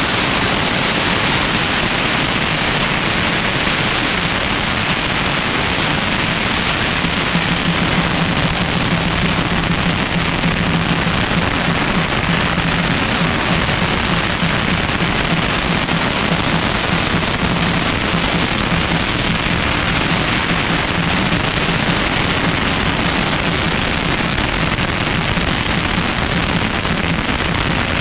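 Long strings of firecrackers going off in a dense, unbroken crackle that holds steady throughout.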